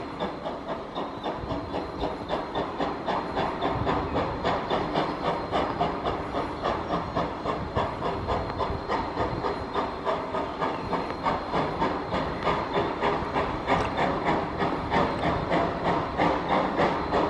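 Viscose Company 0-4-0 No. 6 steam locomotive chuffing at a steady beat, about three exhaust beats a second over a hiss of steam. It grows louder as the locomotive approaches.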